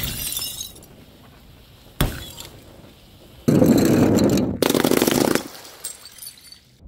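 Glass bottles shattering: a sharp break with a tinkling tail of glass at the start, another sharp break about two seconds in, then a louder, denser stretch of noise lasting about two seconds from three and a half seconds in.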